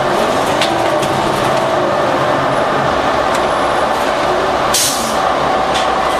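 Cummins ISL9 diesel engine of a 2011 New Flyer Xcelsior XD40 transit bus running under way, its low rumble growing stronger about three seconds in. A short hiss of air from the bus's air system comes near five seconds in.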